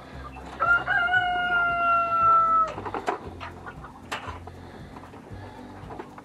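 A rooster crows once, a single held call of about two seconds that falls slightly in pitch. Several light metallic clinks follow as a coil of perforated metal hanger strap is handled.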